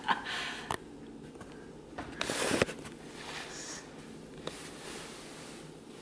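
Quiet room with a couple of sharp clicks and a brief rustling noise about two seconds in.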